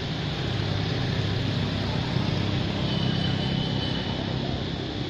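Steady low hum of a motor running nearby over outdoor background noise, easing off a little near the end.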